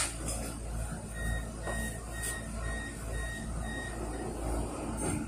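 Tram door warning: about six short, high, evenly spaced beeps, about two a second, from an E-class tram standing at a stop, signalling that its doors are about to move. Under them runs the tram's steady low hum.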